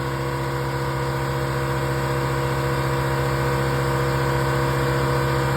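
Air compressor running steadily: a low hum with a fast, even pulsing beneath it, growing slightly louder over the few seconds.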